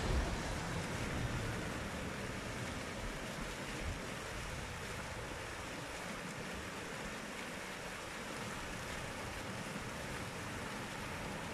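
Several fountain jets splashing steadily into a stone basin: a constant, even rush of falling water.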